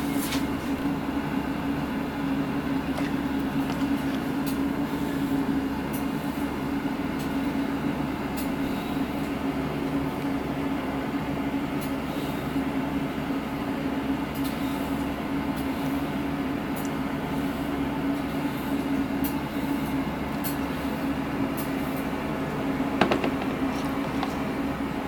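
Steady low machine hum with one strong droning tone, unchanged throughout, with a few faint ticks and a sharper click near the end.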